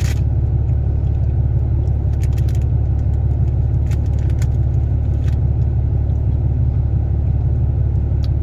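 A steady low rumble runs throughout, with a few short crunching bites and chews of a cookie scattered over it.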